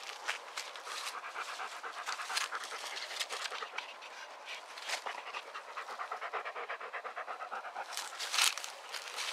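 A dog panting fast and evenly, about five breaths a second. A brief louder rustle comes near the end.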